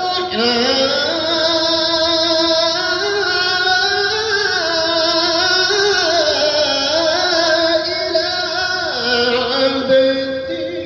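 A male qari reciting the Qur'an in the melodic, drawn-out tajwid style, holding long ornamented notes with a wavering vibrato. Near the end the line falls away and a new, lower phrase begins.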